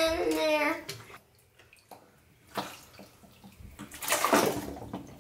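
Bathwater sloshing and splashing as a Lego boat is pushed about in a bathtub, with a small splash about two and a half seconds in and a louder one about four seconds in. A drawn-out voice trails off in the first second.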